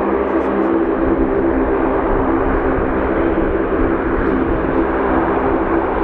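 Lockheed C-130H Hercules taxiing, its four Allison T56 turboprop engines and propellers running in a steady drone with a strong hum of several held tones.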